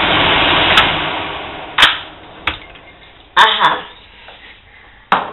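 Close rustling and handling noise that fades away over about two seconds, with a few sharp clicks and taps of things being picked up from the kitchen counter.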